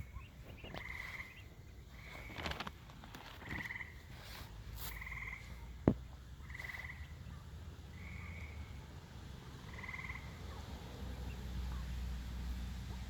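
Frogs calling at a pond: a short trilled call repeated every second or two. A single sharp click about six seconds in.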